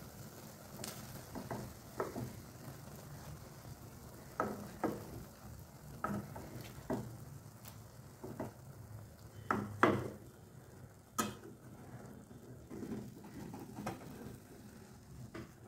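Eggs and noodles sizzling quietly in a non-stick frying pan, with a metal slotted spatula tapping and scraping against the pan in irregular clicks, the loudest about ten and eleven seconds in.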